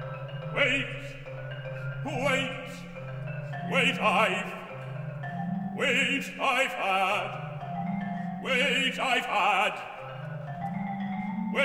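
Live orchestral music: a sustained low bass line under short struck notes from tuned mallet percussion, with vibrato sung phrases coming in about every two seconds.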